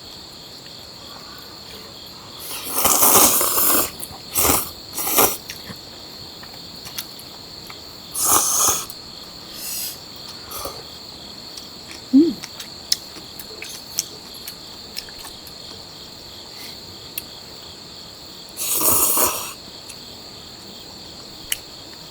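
Crickets chirring in one steady high-pitched drone, with a handful of short, noisy eating sounds such as slurping noodles breaking over it, the longest near the start and one near the end.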